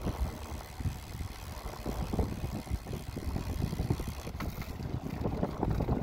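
Wind buffeting the microphone: an uneven low rumble in irregular gusts.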